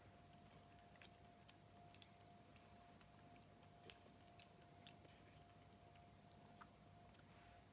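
Faint chewing of soft cauliflower curry, with small scattered mouth clicks over a faint steady hum.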